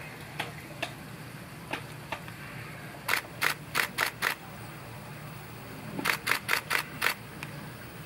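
Camera shutter firing in rapid bursts: a few single clicks, then two runs of about five shots each, about four a second.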